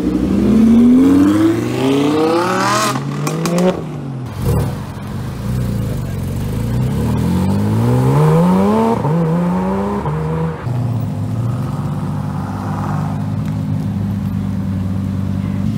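Supercar engines pulling away hard: a V10 Audi R8 revs up in one long rising sweep that ends in a short cluster of sharp pops. About six seconds in, another car climbs through the revs again. It settles into a steady low engine drone for the last few seconds.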